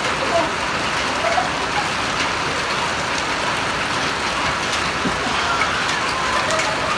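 Steady rain falling on wet stone paving, an even hiss throughout.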